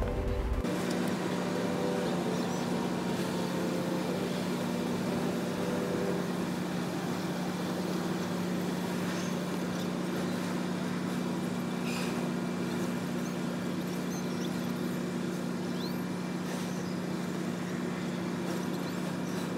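A steady low mechanical hum, as of an engine running at a constant speed, with a few faint ticks over it.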